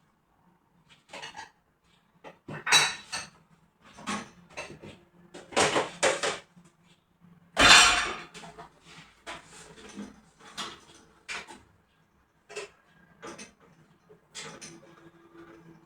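Household items clattering and clinking as they are handled and set down during cleaning: a string of irregular knocks, the loudest about halfway through.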